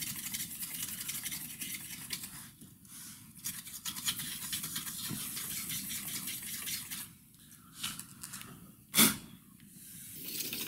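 Toothbrush bristles scrubbing dust from the inside of an opened 2015 15-inch MacBook Pro: a dense, scratchy brushing of quick strokes, with a couple of short pauses. A single sharp knock comes about nine seconds in.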